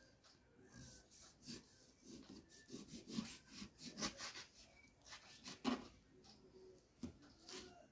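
Kitchen knife slicing a lemon into thin rounds on a plastic cutting board: faint repeated cutting strokes, several a second through the middle, then a few spaced ones near the end.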